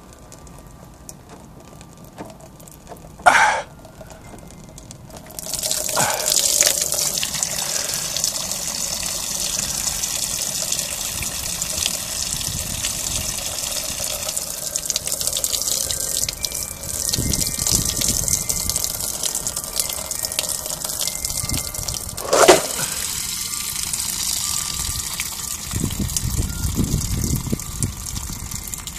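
A boat hull's drain plug is worked loose with a couple of brief sharp sounds. From about five seconds in, water that had collected inside the hull gushes steadily out of the drain hole and splashes below.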